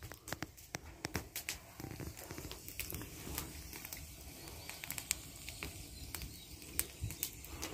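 Dry twigs and leaves crackling and snapping in irregular sharp clicks, as firewood is gathered by hand.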